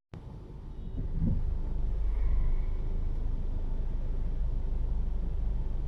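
Car driving, a steady low rumble of engine and road that fades in at the start, with a brief rise in pitch about a second in.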